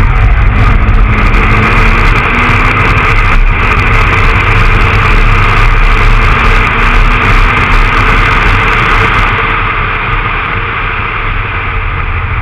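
Honda Accord Type-R's H22A7 2.2-litre VTEC four-cylinder pulling the car at speed, heard through a camera mounted outside the car, with a heavy steady rumble of wind on the microphone. About nine and a half seconds in it gets a little quieter and duller.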